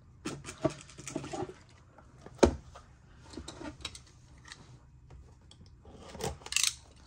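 Hands handling trading-card boxes and packaging: scattered rustles, crinkles and light taps, with one sharp knock about two and a half seconds in and a louder rustle near the end.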